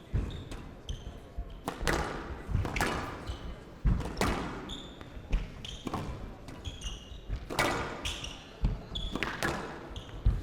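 Squash rally: the ball is struck by rackets and smacks off the court walls in sharp knocks at an uneven pace, roughly once a second, with short high squeaks from shoes on the court floor.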